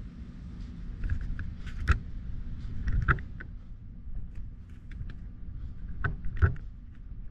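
Quiet handling sounds of hands gathering hair and the satin sleeves shifting: soft rustles and a few light knocks, the clearest about two, three and six seconds in, over a steady low rumble.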